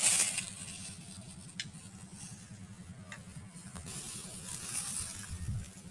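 Low wind rumble on the microphone in an open field, with a brief rustle at the start and a few faint clicks.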